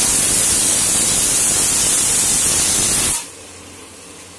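Tomato and spice masala sizzling in hot oil in a pan as it is fried: a steady, loud hiss that cuts off abruptly about three seconds in.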